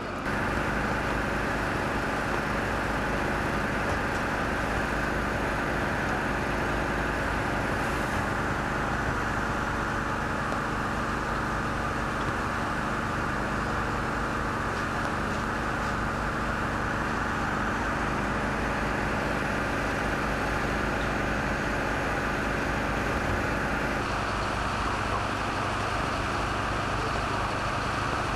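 Fire engines' diesel engines running steadily, with a steady hiss over the engine sound. The mix shifts somewhat near the end.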